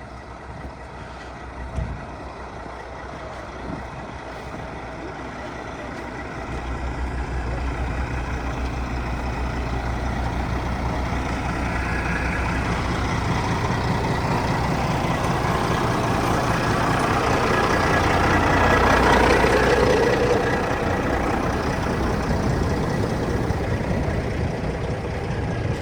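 Heavy diesel truck engine running, building steadily louder from about six seconds in to a peak about three-quarters of the way through, then easing slightly.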